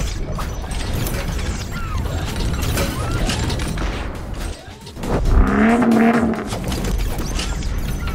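Intro sound effects: a dense run of metallic clanks and clicks, like parts snapping together, over a steady low rumble. A pitched swell stands out about five seconds in.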